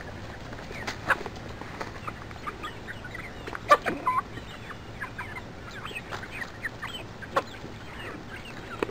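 A flock of chickens clucking and chirping, many short calls overlapping, with a few louder brief sounds about a second in, near the middle and later on.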